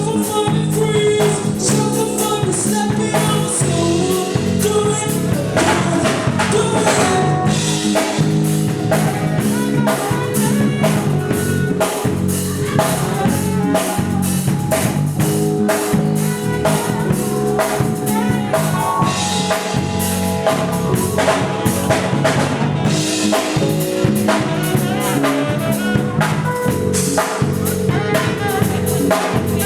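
Live band playing an R&B line-dance song: a drum kit keeps a steady beat with rimshots and bass drum under sustained instruments, with singing.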